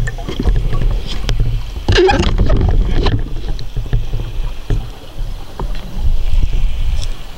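Underwater noise through a camera housing: a steady low rumble of moving water, with a bubbling burst about two seconds in and a few scattered clicks.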